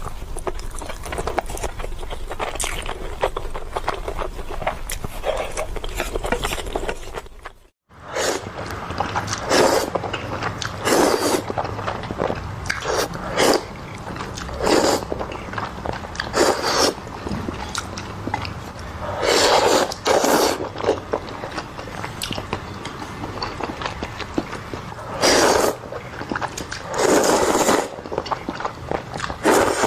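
Close-up eating of Indomie instant noodles: chewing and mouth sounds, with loud bursts of about a second each, repeated every second or two. The sound cuts out briefly about eight seconds in.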